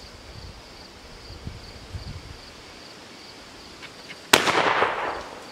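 A single shotgun blast about four seconds in, with its report echoing and dying away over about a second. Insects chirp faintly and steadily throughout.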